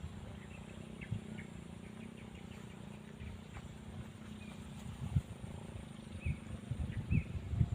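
Wind buffeting the microphone in uneven low rumbles, with faint short bird chirps now and then.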